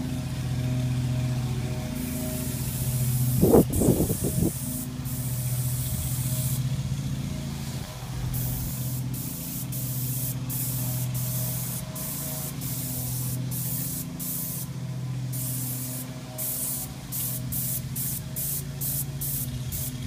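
Graco 695 airless paint sprayer in use: the spray gun hisses in repeated bursts as the trigger is pulled and released, with short, quick bursts near the end, over the steady hum of the sprayer's pump motor. A brief loud rumble about three to four seconds in.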